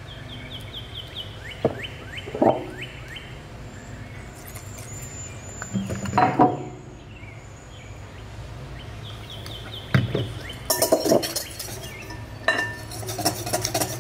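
Cream and maple syrup poured into a glass mixing bowl, with several clinks and knocks against the glass, over a steady low hum. A bird chirps in quick downward-sliding notes near the start and again about nine seconds in. Near the end a whisk starts beating the cream in the bowl in a fast rhythm.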